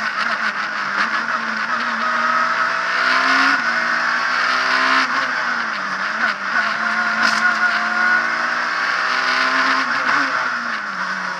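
Abarth Punto S2000 rally car's two-litre naturally aspirated four-cylinder engine driven hard, heard from inside the cabin: the revs climb and drop sharply at each gear change, about 3.5 and 5 seconds in, then fall away near the end as the car slows.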